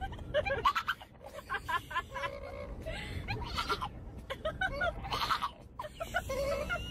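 Bulldog puppy making short, wavering whines and yelps again and again, over the steady low rumble of a car interior.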